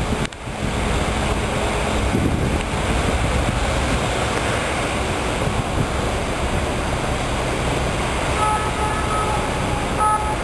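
Steady rushing wind on the microphone over the low rumble of a boat's engine. Near the end a short high steady tone sounds twice.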